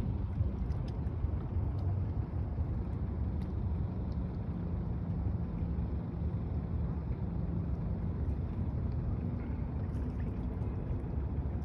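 Steady low outdoor rumble: wind buffeting the microphone over a distant hum of city traffic, with a faint steady drone underneath.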